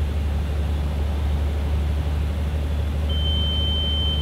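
Steady cockpit drone of a Beechcraft A36 Bonanza gliding with its engine throttled back to idle for a simulated engine failure. About three seconds in, a steady high-pitched cockpit warning horn comes on and holds.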